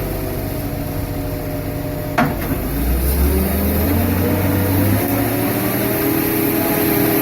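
Al-Jon 580 car logger/baler's engine running with the hydraulics working the grapple. There is a sharp metallic clank about two seconds in, then the engine note deepens and grows stronger as it takes hydraulic load.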